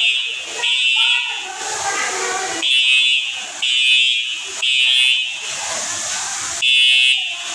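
Fire alarm sounder going off with a loud, high beep in groups of three, each beep just under a second long, followed by a short pause. This is the temporal-three evacuation pattern, showing that the alarm has been triggered.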